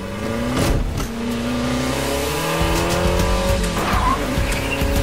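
Race-car engine sound effect revving up in rising steps, with a brief tyre squeal, over background music.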